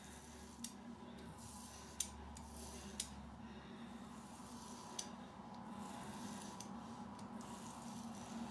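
Leaf safety razor with Astra Green blades scraping through thick shaving lather on a leg, faint scratchy strokes with a few light clicks.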